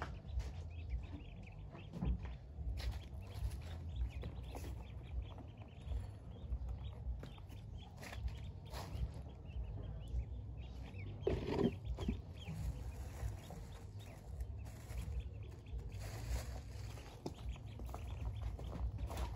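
A crowd of Pekin ducklings peeping continually, many short calls overlapping, with one louder sound a little past halfway. A low rumble runs underneath.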